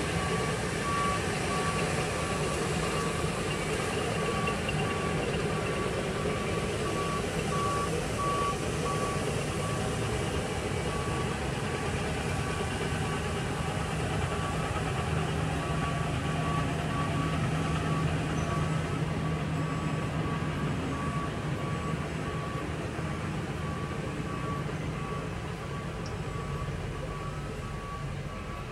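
Diesel engines of heavy road-construction machinery, a road-milling machine and a dump truck, running steadily, with a backup alarm beeping at a single pitch in repeated bursts.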